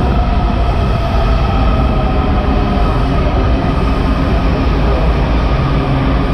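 Washington Metro railcars running past the platform in an underground station: a loud, steady rumble of wheels and running gear with a faint whine above it.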